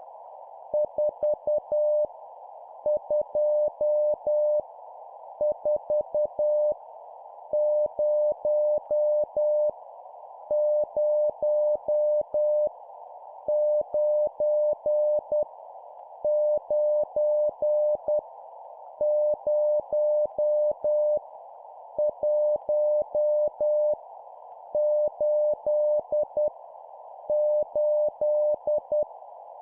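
Morse code practice tone keyed at 10 words per minute, sending random numbers: groups of five dots and dashes on a single steady pitch, each group followed by a short pause. A steady band of hiss, like a receiver's noise, runs under the tone.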